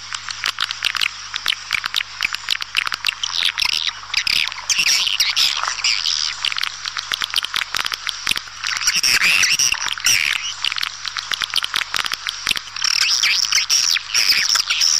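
Swiftlet lure call: a dense, continuous twittering chorus of many swiftlets, high-pitched chirps laced with rapid clicks. This is the kind of recorded call played to draw swiftlets into a nesting house.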